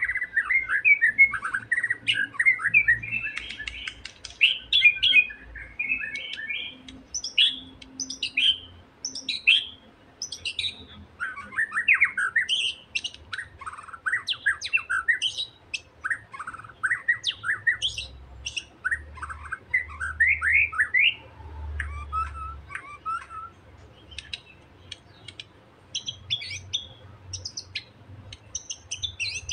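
Young wild white-rumped shama (murai batu) giving taunting challenge calls, a display that provokes a rival male. It is a busy, almost unbroken run of short chirps and quick down-slurred whistles.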